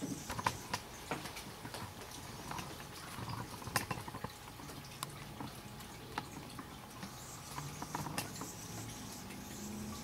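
Irregular water drops pattering and ticking, dripping from wet trees and surfaces after rain.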